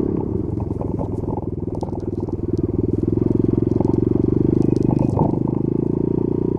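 Honda Monkey Z50J's 49 cc air-cooled four-stroke single running as the bike rides along. The engine note is uneven for the first couple of seconds, then settles into a steady, slightly louder run about three seconds in.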